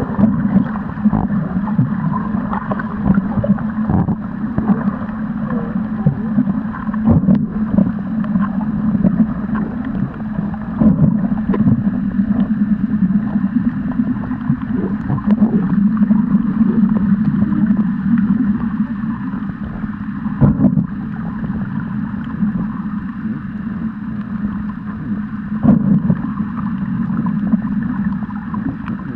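Muffled underwater noise picked up by a camera held under the water: a steady low rumble and sloshing, with scattered small clicks and knocks.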